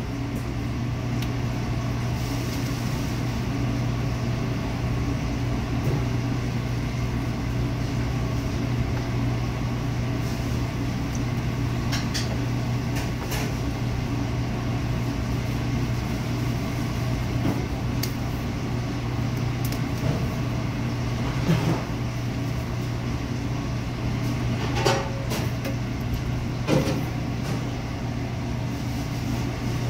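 Steady low mechanical hum of commercial kitchen equipment, with a few scattered clicks and knocks of kitchen work.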